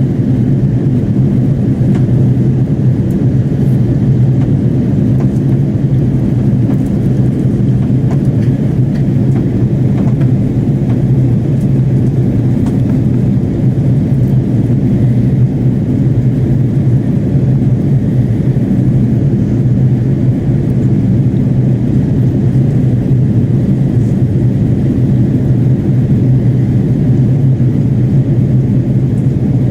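Steady drone of an Airbus A330-300's engines and airflow, heard inside the passenger cabin in flight.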